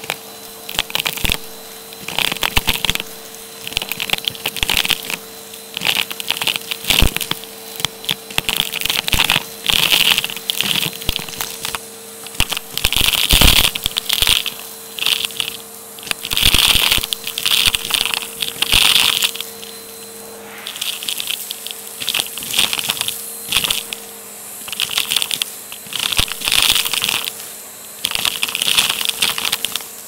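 Vacuum cleaner's hose nozzle sucking pistachio shells, beads and bits of plastic straw off carpet. A steady motor hum runs under it, with repeated bursts of crunching and rattling clicks as debris is pulled up the hose.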